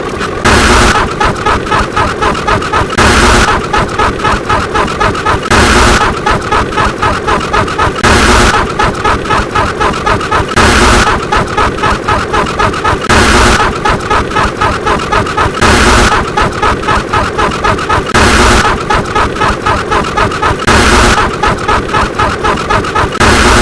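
A looped sound effect: a short, loud explosion-like burst about every two and a half seconds, with a fast pulsing rhythm of about four beats a second between the bursts.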